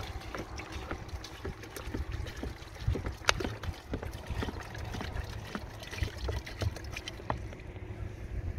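Thin plastic bottle crackling and crinkling as it is squeezed upside down, dribbling bee feed onto a hive's top bars, with wind rumbling on the microphone.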